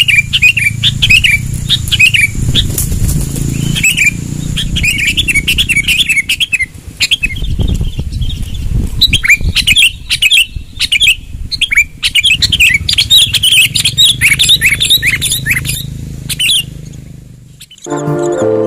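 Sooty-headed bulbuls (kutilang) chirping in quick, lively runs of short notes, with many sharp clicks and a low hum underneath. The calls stop near the end.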